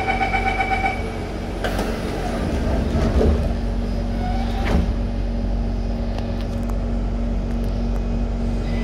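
Train door-closing chime beeping rapidly for about a second, then the sliding doors of a C151 metro train shutting with a thud about five seconds in, with a lighter knock before it. A steady hum from the stationary train runs underneath.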